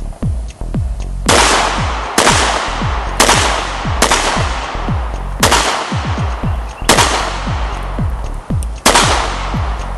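About seven pistol shots, irregularly spaced one to two seconds apart, each sharp crack trailing off slowly. Electronic music with a steady beat plays underneath.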